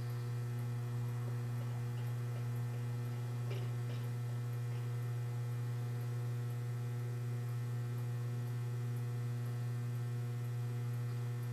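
Steady electrical mains hum: a constant low buzz with an even stack of overtones that does not change.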